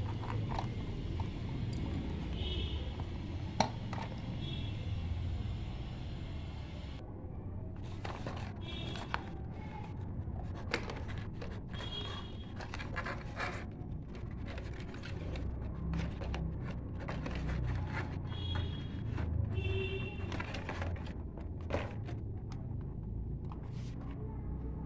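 Cardboard packaging being handled and pulled apart as a toy car's plastic remote control is worked loose from the box insert: scraping and rustling with many scattered clicks and knocks.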